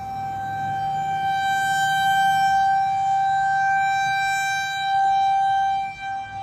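Outdoor civil-defense warning siren sounding one steady wailing tone, its level dipping briefly near the end, over low wind rumble.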